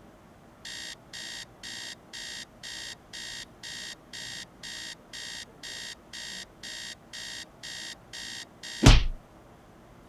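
Digital alarm clock beeping, about two high-pitched beeps a second. Near the end one loud thump, a hand slapping down on the clock, and the beeping stops.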